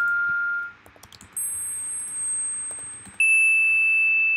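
Sonic Pi's pretty_bell synth playing single bell-like electronic notes, each one ringing and fading: a tone dies away, a high note sounds about a second and a half in, then a lower one near the end. Each note is triggered by an OSC message sent from Blender, its pitch set by the value sent.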